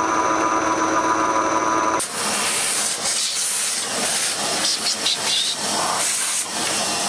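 Metal lathe running with a steady multi-tone whine for about two seconds. Then, abruptly, a shop vacuum takes over, a loud, even hiss as its hose sucks up cast-iron chips around the chuck.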